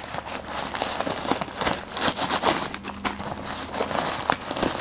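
Fabric rustling and packaging crinkling as a hand rummages in a backpack's front pouch and pulls out a packaged first aid kit, with many small irregular crackles throughout.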